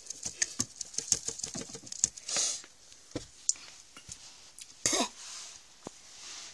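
Handling noise of plastic dolls and toy dollhouse pieces: a quick run of light clicks and taps, then a few single knocks, a brief rustle, and a louder bump about five seconds in.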